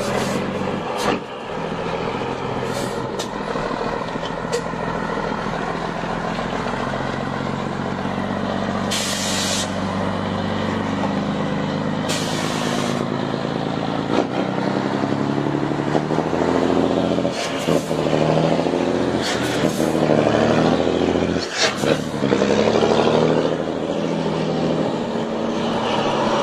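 Scania 112 truck's diesel engine running, its pitch climbing and dropping several times as it is revved up. Two short hisses of compressed air, about nine and twelve seconds in, with a few sharp clicks.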